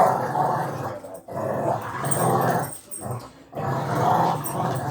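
Dog growling in three long bouts with short breaks between them.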